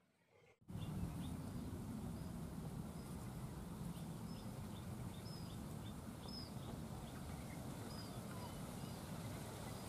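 Open-air ambience after a split second of silence: a steady low wind rumble on the microphone, with small birds chirping faintly in short, high, repeated notes.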